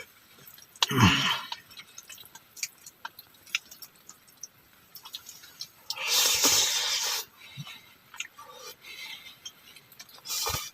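Someone eating instant noodles: a short slurp about a second in, a longer slurp around six seconds in and another near the end, with chewing and scattered small clicks between.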